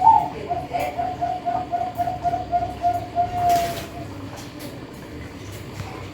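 A caged bird calling: one loud note, then a fast even run of low notes, about five a second, for some three seconds, ending in a slightly longer note. A short hissing rustle comes near the middle.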